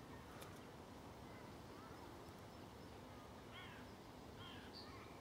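Quiet outdoor ambience with a few faint bird calls, two short ones in the second half.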